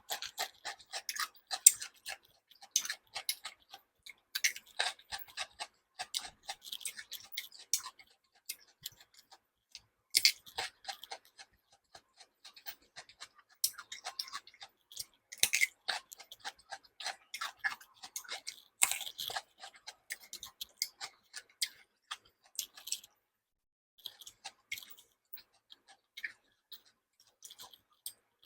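Close-miked eating sounds: a person chewing, with a run of short, irregular wet clicks and smacks from the mouth, thinning out to a few scattered clicks near the end.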